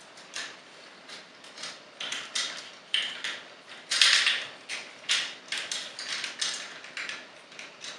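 Hard plastic parts of a Transformers toy figure being handled and rotated during transformation: irregular clicks and clacks of plastic pieces and joints, loudest about four seconds in.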